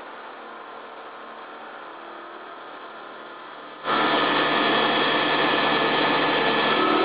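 A low steady hum, then, about four seconds in, an abrupt switch to the loud, steady noise of a heavy CNC milling machine's cutter machining a large steel workpiece, with several steady whining tones running through it.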